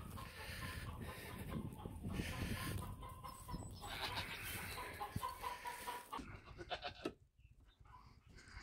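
Chickens clucking faintly, with the sound falling away sharply about seven seconds in.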